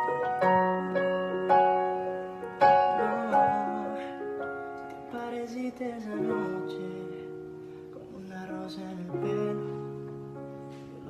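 Instrumental music: soft piano-like keyboard notes, struck and left to ring and fade, one after another.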